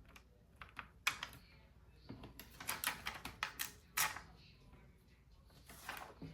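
A run of light clicks and taps, small phone parts and plastic being handled on a work surface, thickest about two to four seconds in.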